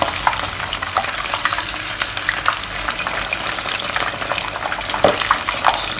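Two batter-coated chicken pieces deep-frying in hot oil: a steady sizzling hiss dotted with many small crackles.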